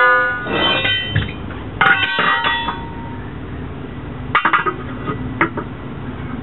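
Steel tire irons clanking and ringing against the steel split lock ring and rim of a military truck wheel as the ring is pried up out of its groove. There is one hard ringing clang at the start and another about two seconds in, then two lighter clinks later.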